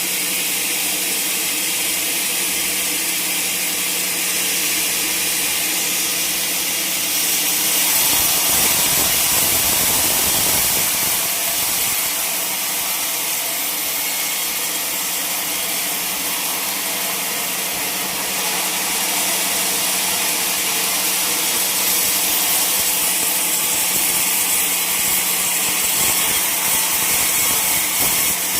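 Sawmill saw running steadily as it cuts through a log, a constant motor hum under a loud hissing whine of the blade in the wood, swelling for a few seconds about a third of the way in.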